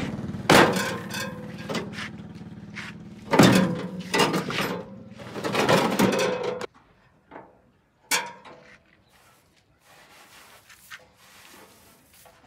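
A machine with a steady hum running under loud metal clanks and knocks, cutting off abruptly about two-thirds of the way through; a few quieter knocks follow.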